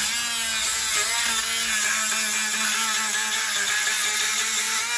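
Corded Dremel rotary tool running at high speed, cutting through the plastic mesh of a lawnmower grass-catcher insert; its steady whine wavers in pitch as the cutting bit loads up in the plastic.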